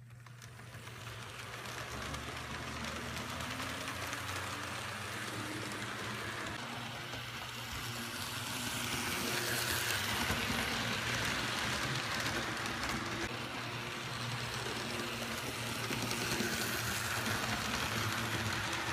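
HO-scale model train running past on its track, its wheels clattering along the rails. It grows louder as it approaches and is loudest about halfway through and again near the end, as the cars roll by close.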